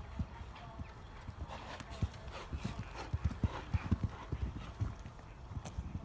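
Hoofbeats of a cantering horse on a sand arena surface: a run of muffled, rhythmic thuds that grow loudest in the middle as the horse passes close, then fade.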